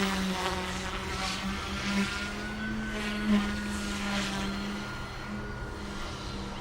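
Omphobby M1 micro electric RC helicopter in flight: a steady motor and rotor whine, with higher tones that shift in pitch during the first few seconds as it manoeuvres.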